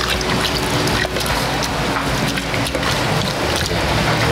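Ladle stirring a thick stew in a stainless steel pot, with many small scrapes and clinks over a steady hiss.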